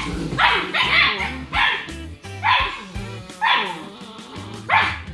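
Six-week-old German Shepherd puppies yipping and barking, about six short, high, falling cries. Background music plays underneath.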